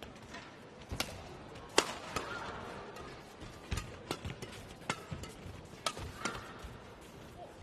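Badminton rackets striking a shuttlecock in a fast rally: a string of sharp cracks about every half second to second, the loudest about two seconds in.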